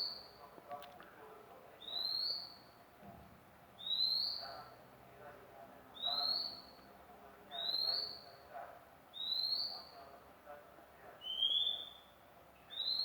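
Oriental magpie-robin (murai kampung) calling a single short rising whistle over and over, about one note every two seconds.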